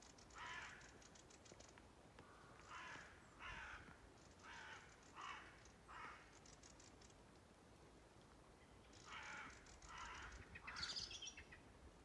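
Crows cawing faintly, about nine harsh caws in loose groups with a gap in the middle, and a higher, thinner bird call near the end.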